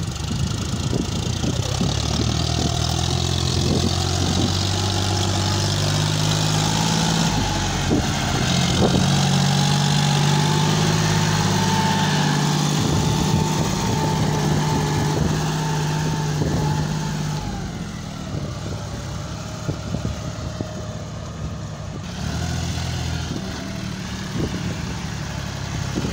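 John Deere 5050 D tractor's three-cylinder diesel engine running under load as it pulls a trolley heaped with soil. The engine note is steady, steps up in pitch a few seconds in, and falls in level about two-thirds of the way through.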